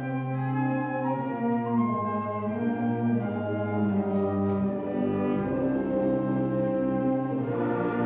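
High school symphonic band playing a Christmas carol medley, with slow, held chords. The full band comes in louder right at the start, and the upper parts fill out near the end.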